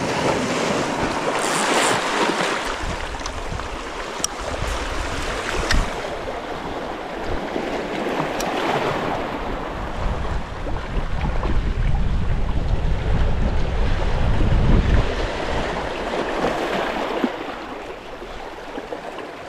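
Sea waves washing over shore rocks, with wind gusting across the microphone. The wind rumble is heaviest through the middle and eases near the end.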